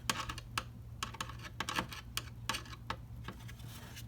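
Pliers clicking and ticking against a small nut and metal parts as the nut is tightened by hand: light, irregular clicks, several a second, over a faint low hum.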